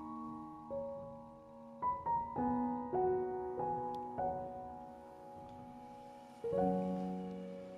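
Background piano music: slow, soft notes and chords struck one after another, each left to ring and fade.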